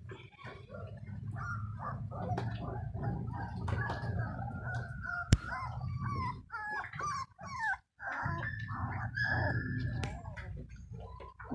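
A dog whimpering and whining in a run of short, high, wavering cries over a steady low rumble, with one sharp click about five seconds in.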